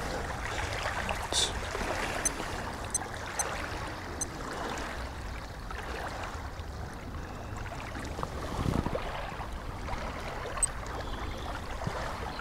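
Small waves lapping on a rocky lakeshore, with wind rumbling on the microphone and a few faint clicks.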